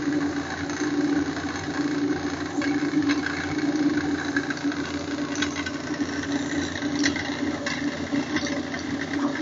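QU-BD Revolution XL 3D printer running a print at 300 mm/s: its stepper motors give a steady hum and a fast, ever-changing buzz as the print head darts back and forth. A few light clicks sound along the way.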